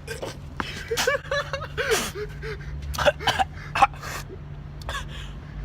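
Short gasping, strained vocal sounds from a man, in short bursts, over a steady low hum.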